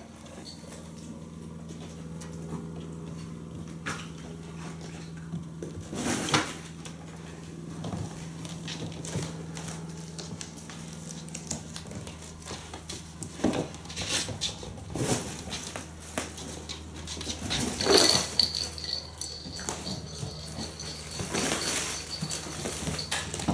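Kittens playing on a wooden floor: scattered soft thumps, paw patter and clattering of small plastic cat toys, over a steady low hum.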